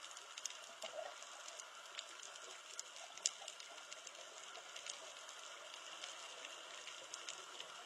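Faint underwater reef ambience: a steady hiss with scattered sharp clicks and crackles.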